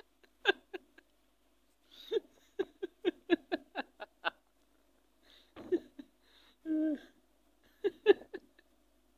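A person giggling in quick runs of short laughs, about four a second, with pauses between the runs.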